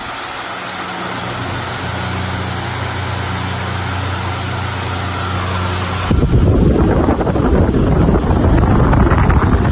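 Arge 50 cm oscillating wall fan running: a steady rush of air with a low motor hum. About six seconds in, the airflow sweeps onto the microphone and turns into loud wind buffeting.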